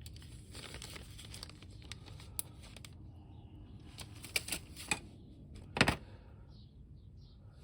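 Small clicks and taps of hobby tools and plastic parts being handled on a workbench, with a few sharper clicks about four to six seconds in.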